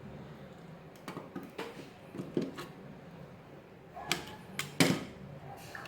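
Small clicks and handling rattles of a solid copper wire pushed into an outlet's push-in (click-lock) terminal and tugged to check that it holds. A louder cluster of sharp clicks comes about four to five seconds in.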